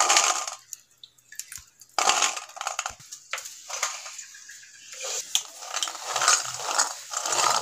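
Shelled green peas being washed by hand in water in a stainless steel bowl: irregular bursts of splashing and swishing as the hand stirs through them.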